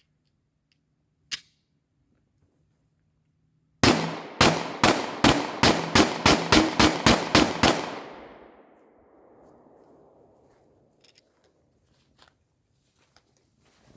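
Taurus 9mm pistol fired in a rapid string of about a dozen shots over some four seconds, the shots coming closer together toward the end, the last report dying away over a second or two.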